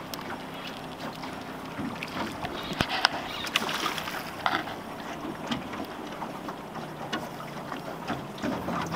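A hooked steelhead thrashing at the water's surface beside a drift boat, splashing, loudest between about two and four and a half seconds in.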